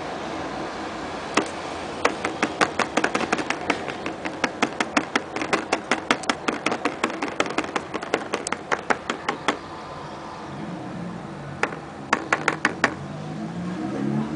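Fingertip tapping rapidly on the surface of a non-Newtonian fluid in a plastic tub, about five sharp taps a second for several seconds, then a pause and a short burst of about five more. The fluid firms up under each quick strike, so the taps land as knocks, not splashes.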